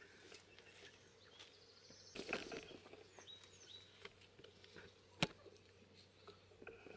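Quiet outdoor ambience: soft rustling of cherry leaves and fruit as cherries are picked by hand, a few faint high bird chirps midway, and one sharp click about five seconds in.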